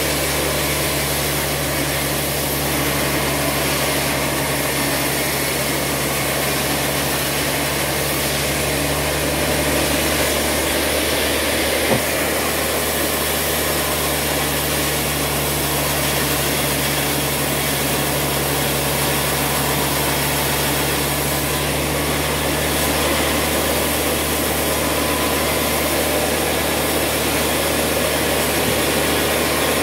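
Large band sawmill running steadily with a constant low drive hum while a heavy timber beam is fed through its blade. A single sharp knock about twelve seconds in.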